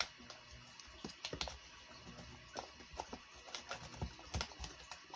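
Irregular light clicks and crinkles of a clear plastic clamshell lure package being handled, as a soft frog lure is pushed back into it.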